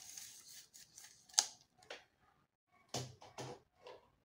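Scattered light clicks and rustles of hands handling a lavalier mic cable and a tape measure on a tabletop, with one sharper click about a second and a half in and a few more near the end.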